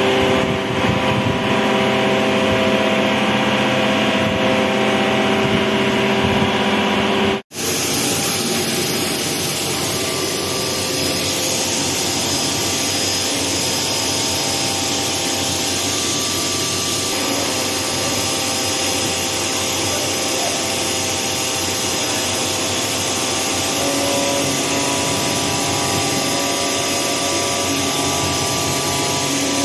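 CNC vertical machining centre milling a metal workpiece: steady spindle and cutting noise with a few held tones. The sound drops out briefly about seven and a half seconds in and comes back broader and brighter.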